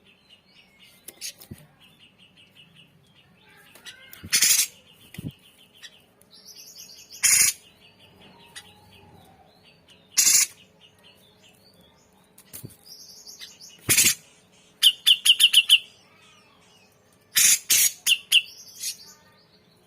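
Grey-cheeked bulbul (cucak jenggot) singing: loud, harsh calls every three seconds or so, with a quick run of repeated notes about fifteen seconds in.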